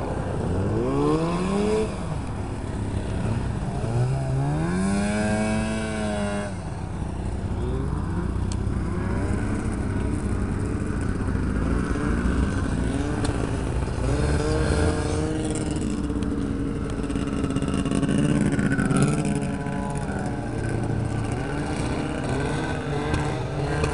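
Several snowmobile engines running at once: revving up with rising pitch twice in the first several seconds, then a mix of idling and steadily running engines.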